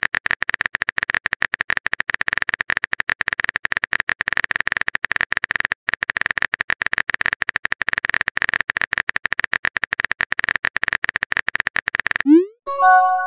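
Rapid, steady run of keyboard-typing clicks from a chat-story typing sound effect, stopping about twelve seconds in. It is followed by a short message-notification chime: a quick rising sweep, then a few pitched tones.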